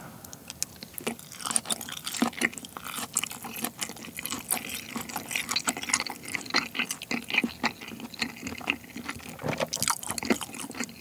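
Close-miked chewing of an octopus nigiri: a continuous, irregular run of mouth clicks and smacks as the chewy octopus and rice are worked.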